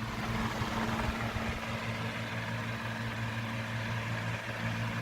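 1950s Hawkins 12-inch table fan running with its oscillator off: a steady low electric-motor hum under the even rush of air from the blades.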